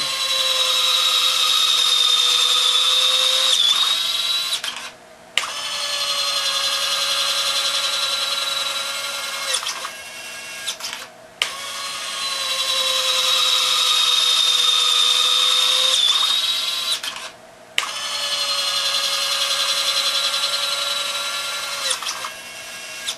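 Two small DC gear motors driving jack-screw actuators on modified Robart 630 retracts, whining steadily as they swing the landing gear up and down. There are four runs of about five seconds each with short pauses between. The two motors run in stagger mode, about a second apart.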